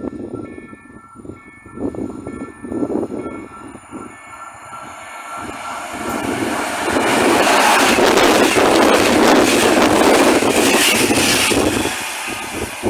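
An EP09 electric locomotive hauling an Intercity express passenger train passes through the station at speed. A rush of wheel and air noise builds from about halfway through, is loudest for about four seconds as the locomotive and coaches go by, then drops away near the end.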